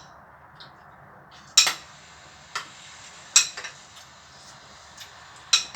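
Eating utensils knocking and clinking against a bowl: a handful of sharp, separate clicks a second or so apart.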